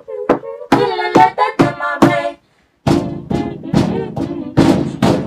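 Music track with a regular beat and a pitched melodic line. It drops out to silence for about half a second a little over two seconds in. It comes back as a fuller beat with heavy bass.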